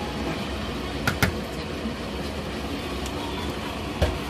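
Seasoned young radish greens being tossed and mixed in a plastic basin, with a couple of sharp clicks about a second in and again near the end, over a steady low hum.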